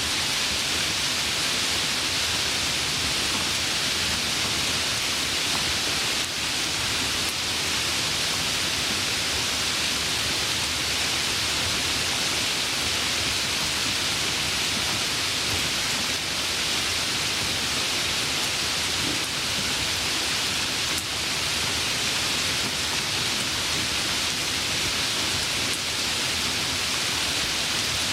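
Steady rain falling, an even hiss with no drops or thunder standing out.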